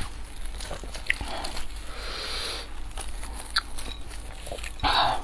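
Close-miked eating sounds: a person chewing and biting into a pan-fried stuffed flatbread, with soft rustles from handling it in plastic-gloved hands. A louder bite comes near the end.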